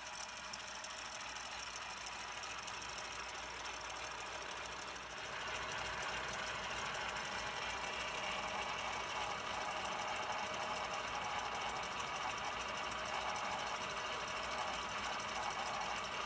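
Planetary ropemaking machine running: its small DC electric motor and spinning spool carriage make a steady mechanical whir with a fast, even rattle while the plied yarn winds onto a take-up spool on a lead-screw traverse. The sound gets louder about five seconds in.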